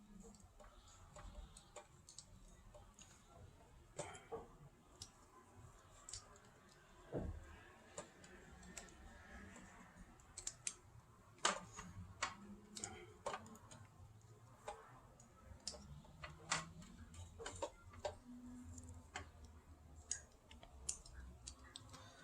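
Faint, irregular clicks and light taps of small parts being handled, with a duller knock about seven seconds in.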